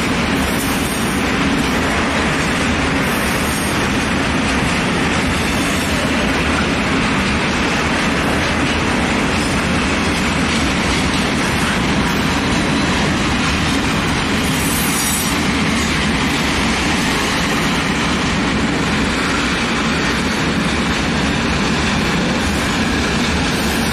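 Freight train of loaded open wagons rolling past, a steady, loud rumble of wheels on rails with a few brief high wheel squeals, the clearest about fifteen seconds in.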